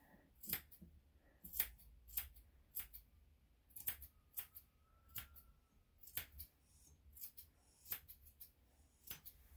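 Grooming scissors snipping the fur around a dog's front foot, with short crisp snips in irregular pairs and small runs, about two a second.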